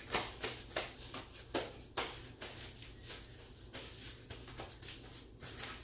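Hands being scrubbed at the kitchen sink: a run of short, irregular swishing strokes.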